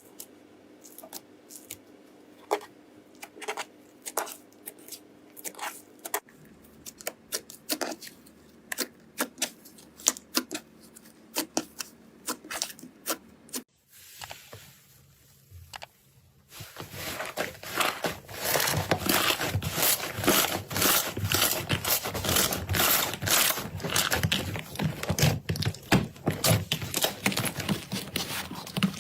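Glossy slime being pressed and worked by hand, giving sticky pops and clicks. They are scattered at first, stop briefly about halfway, then come back as a dense run of crackling pops.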